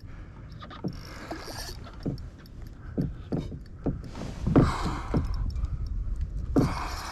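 Irregular knocks and bumps on a kayak hull while a fish is played from the boat, with a few short bursts of hiss.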